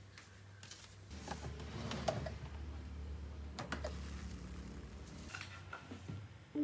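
A smart electric rice cooker's lid is unlatched and lifted open, with several sharp plastic clicks and knocks over a low hum. Near the end a wooden cutting board is set down on the table with a couple of light knocks.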